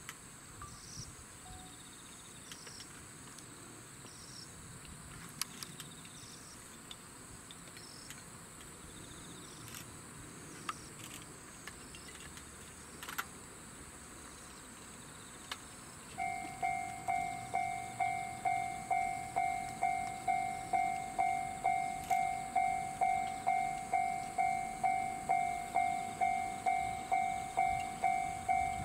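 Japanese railway level-crossing warning bell starts about halfway through, a ringing tone struck about twice a second, the signal that a train is approaching. Before it, only insects are chirping steadily.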